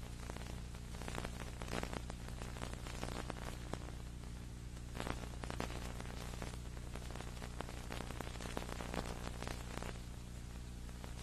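Electrical hum with crackling static in place of the programme sound: the tape's audio track has dropped out.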